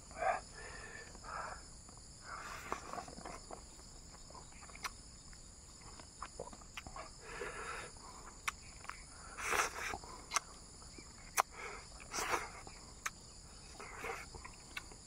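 Close-up eating sounds of someone chewing a mouthful of fish and rice eaten by hand, with irregular wet chews, lip smacks and a few sharp clicks. Insects trill steadily and high-pitched behind.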